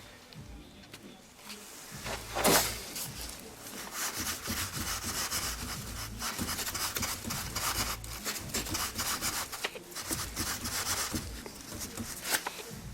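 Rubbing and scraping handling noise, with one sharp knock about two and a half seconds in, then a long stretch of close scraping with small clicks.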